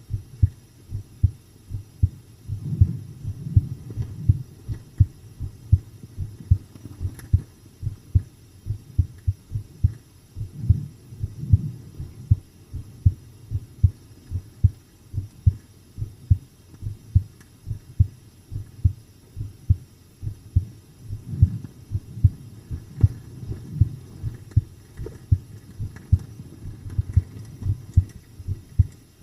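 A person's heartbeat heard up close: calm, steady double thumps (lub-dub) in an even rhythm, low and dull with no higher sound above them.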